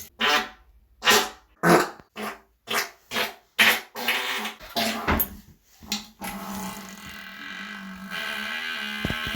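Human farts: a quick run of about ten short farts, then from about six seconds in one long drawn-out fart with a steady low pitch.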